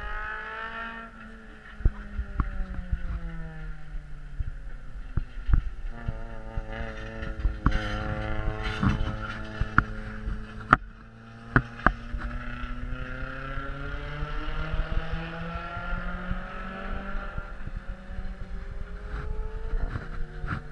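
Race car engine lapping a short oval track. Its pitch falls as the car goes by and the driver lifts, then climbs steadily as it accelerates down the straight, and falls again near the end. A few sharp knocks break through.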